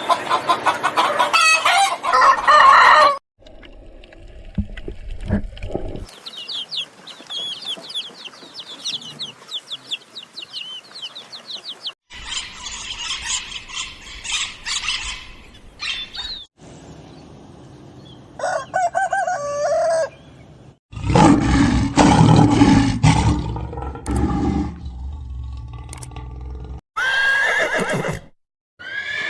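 Chickens calling, with a rooster crowing and hens clucking, in a run of separate segments that change abruptly several times.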